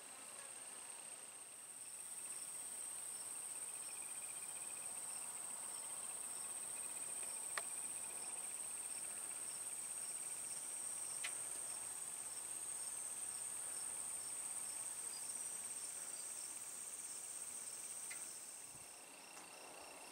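Insects trilling steadily in a high, unbroken band, with a fainter chirp repeating regularly above it. Two sharp clicks come near the middle.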